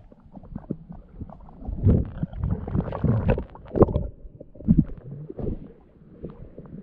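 Muffled underwater gurgling, rumbling and irregular knocks picked up by a submerged action camera as a freediver swims up through kelp, then water sloshing as the camera comes to the surface in the second half.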